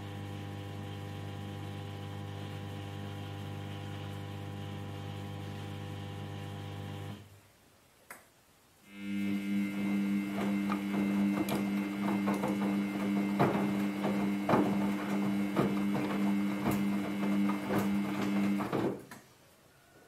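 Samsung Ecobubble front-load washing machine turning its drum in the wash phase of a quick wash: a steady motor hum that stops about seven seconds in, pauses for about two seconds, then starts again with a different hum and frequent knocks from the tumbling laundry, stopping again near the end.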